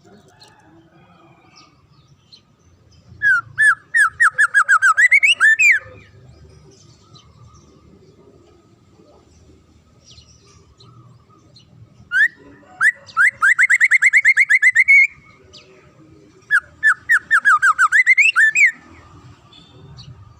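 Songbird singing three bursts of rapid, rising whistled notes, each burst lasting two to three seconds, with a faint low rumble between them.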